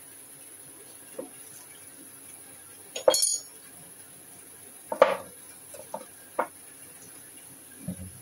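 Kitchen knife cutting broccoli on a cutting board: a few irregular sharp knocks of the blade on the board, the loudest about three and five seconds in, the first of these with a brief metallic ring.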